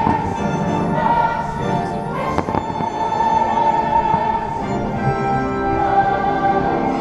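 Choral and orchestral music from a fireworks show soundtrack, with distant firework bursts going off, the clearest about two and a half seconds in.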